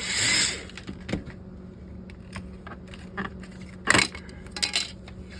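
Small metallic clicks and taps of screwdriver work on a car stereo head unit as screws are taken out, scattered and irregular, the loudest click about four seconds in. A short hiss at the start and a low steady hum lie under it.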